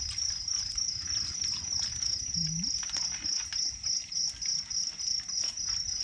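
Night insects, most likely crickets, trilling steadily in a continuous high pulsing chorus, with light clicks and taps of people eating from plates.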